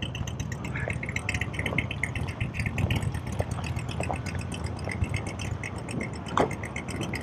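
Motorcycle engine idling: a steady low rumble, with a scatter of faint high ticks over it.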